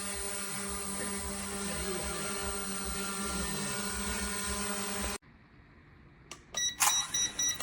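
Small quadcopter drone's propellers running with a steady whine, which stops abruptly about five seconds in. Near the end a series of short electronic beeps starts.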